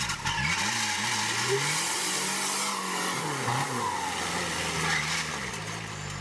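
Vehicle engine revving, its pitch rising and falling several times over a steady hiss.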